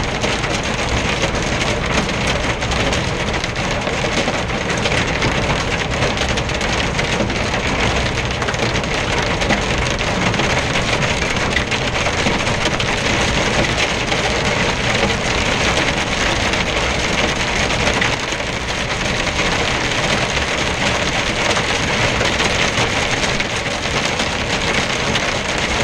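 Heavy rain beating steadily on a moving truck's windscreen and cab, heard from inside the cab as a dense, even patter.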